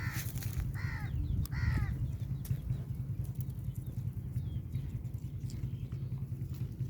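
A goat tearing and chewing grass, with faint scattered crunching clicks, over a steady low rumble. In the first two seconds a bird gives three short falling calls.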